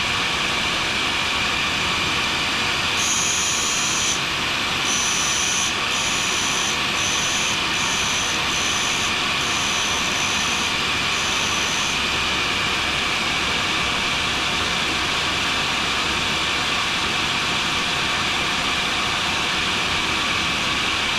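A grinder running steadily, with its noise mixed with ventilation. From about three seconds in to about twelve seconds in, a carbide scraper blade is pressed against the wheel in about eight short passes, each giving a high-pitched squeal, while the blade is brought to a sharp edge.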